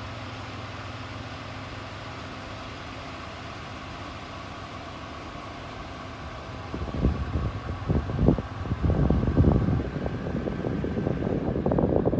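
A vehicle engine running with a steady hum; from about seven seconds in, loud uneven rumbling comes over it as the vehicle moves across the sand.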